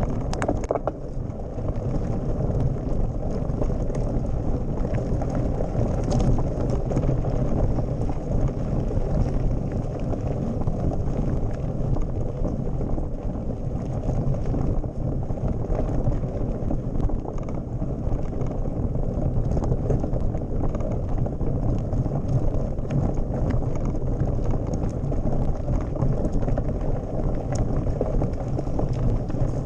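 Mountain bike rolling over a stony gravel road: a steady rumble of knobby tyres on loose stones, with frequent small clicks and rattles from the bike shaking over the rocks.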